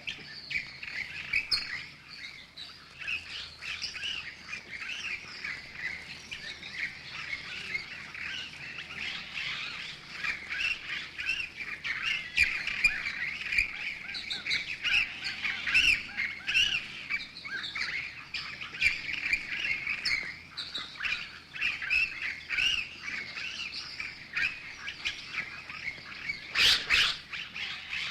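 A flock of birds squeaking and chattering in dense, overlapping short calls, with a louder harsh burst of calls near the end.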